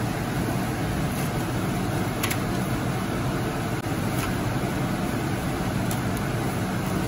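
Steady background noise with a low hum, with a few faint crisp snips as kitchen scissors cut through crispy fried chicken.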